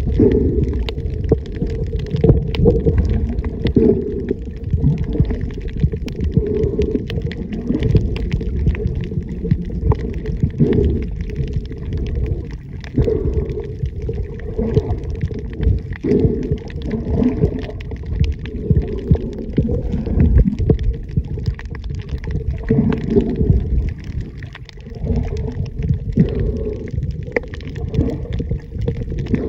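Muffled underwater noise picked up by a submerged camera: a loud, uneven low rumble of water moving around the microphone, with a faint crackle of small clicks over it.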